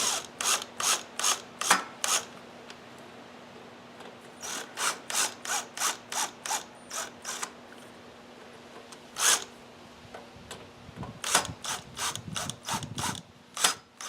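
Hand ratchet clicking in short runs of about two to three clicks a second, with pauses between the runs, as screws are turned down by hand. A faint steady hum underneath.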